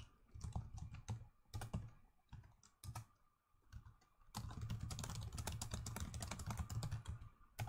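Typing on a computer keyboard: a few scattered keystrokes in the first three seconds, then a fast, continuous run of typing from about four seconds in.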